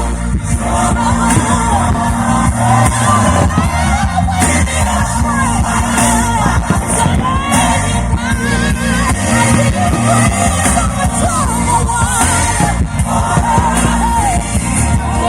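Loud pop music with a singer holding wavering, vibrato notes over a heavy bass beat.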